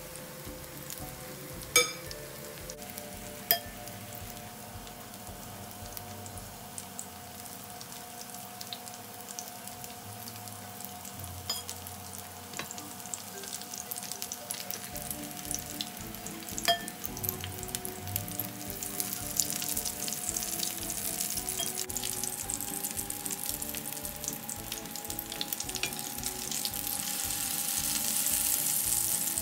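Hash brown patties of grated potato shallow-frying in olive oil in a nonstick pan over medium heat: a steady sizzle with crackling that grows louder near the end. A few sharp clicks break through, the first two early and one about halfway.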